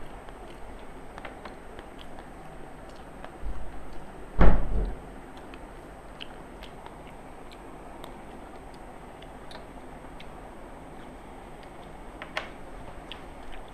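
Two people eating rice and curry with their hands from metal plates: small scattered clicks and smacks of chewing and fingers working the food. A loud low thump about four and a half seconds in, just after a softer one.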